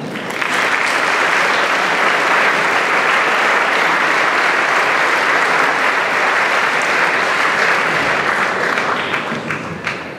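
Audience applauding in a hall, steady for most of the time, then thinning to a few scattered claps and fading near the end.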